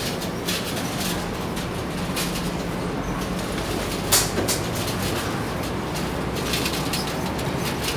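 Busy market ambience heard while walking: a steady rumble with a low hum, and one short knock about four seconds in.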